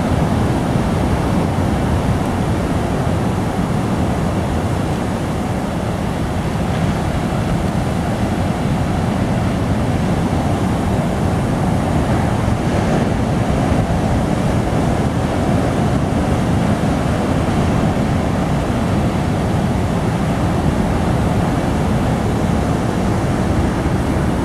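Ocean surf breaking and washing ashore in a steady rush, with wind rumbling on the microphone.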